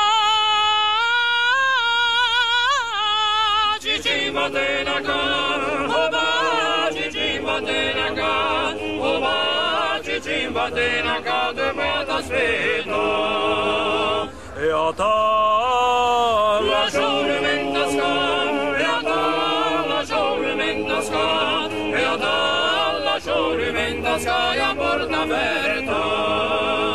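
Trallalero: an all-male Genoese a cappella vocal squad singing in close harmony, with a high falsetto part above the lower voices.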